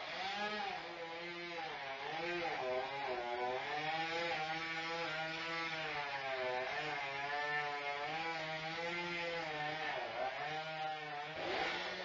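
Chainsaw running under load while cutting, its engine pitch rising and falling as it bites, then dropping off near the end.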